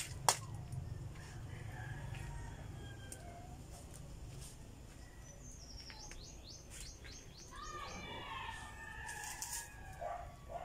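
Birds chirping in the background: a quick trill of about eight high notes about six seconds in, then a run of lower calls. At the very start a metal spoon gives a single sharp clink against the wok of roasting cacao beans.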